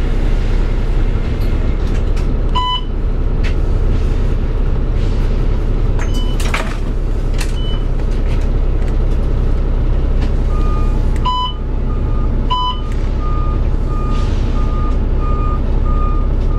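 2000 Neoplan AN460A articulated bus with a Cummins ISM diesel and Allison B500R transmission, the engine running steadily. Short electronic chime tones sound a few times. From about eleven seconds in, a steady beeping comes about twice a second.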